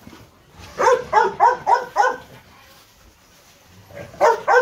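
A dog barking in quick runs: five sharp barks about a second in, then another short burst of barks near the end.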